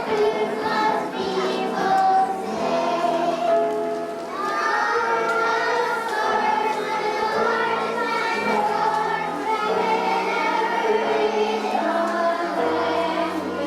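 A group of voices singing a song together over instrumental accompaniment, as in a stage musical number.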